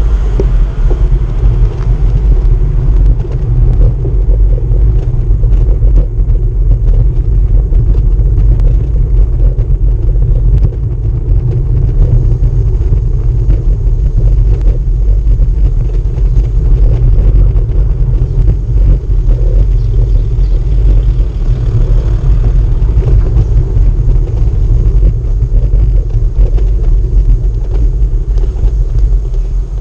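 Bicycle rolling over cobblestone paving, heard through the bike-mounted camera: a loud, continuous low rumble with a dense rattle of small jolts from the stones.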